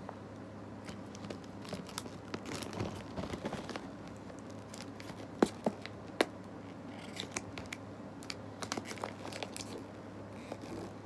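Hands picking and scratching at the wrapping and tape of a toy package, with small crinkles and scrapes and two sharper clicks about five and a half and six seconds in.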